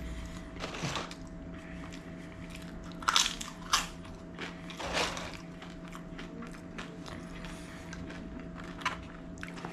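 A person biting into a burrito and chewing close to the microphone, with a cluster of sharp bite and crunch noises about three seconds in and another near five seconds. A faint steady hum runs underneath.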